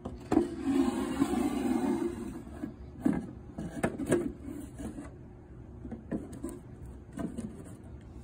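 A painted wooden panel sliding along the top edges of a wooden box, wood rubbing on wood for a couple of seconds, then a handful of knocks and taps as it is pushed into place.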